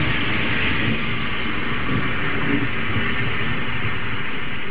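Thunderstorm: a steady rushing noise with a low, uneven rumble underneath.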